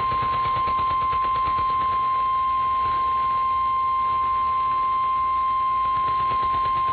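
NOAA Weather Radio's 1050 Hz warning alarm tone: a single steady, loud tone held without a break, the attention signal that comes before a weather warning broadcast.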